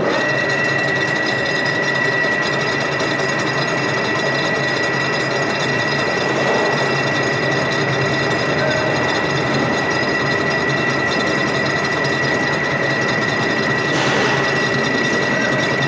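Metal-turning centre lathe running with its chuck spinning, a steady mechanical whine with a constant high tone over a low hum, as a metal bar is turned. A brief hiss near the end.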